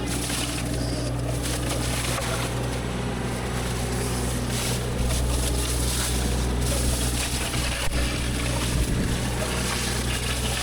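Diesel engine of heavy land-clearing machinery running steadily with a constant low hum, a few faint knocks about eight and nine seconds in.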